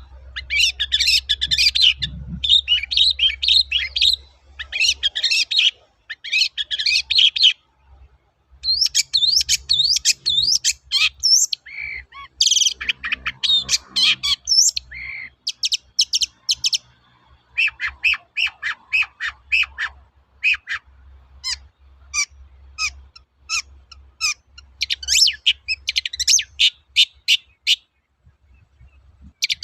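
Long-tailed shrike (cendet) singing: bursts of rapid, scratchy chattering phrases, then strings of short, sharp repeated notes, with brief pauses between bouts.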